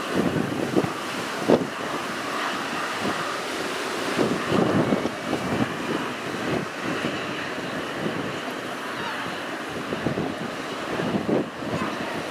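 Airbus H225 helicopter running on the ground with its rotors turning: a steady rush of rotor and turbine noise with a faint whine, broken by irregular low thumps of wind on the microphone.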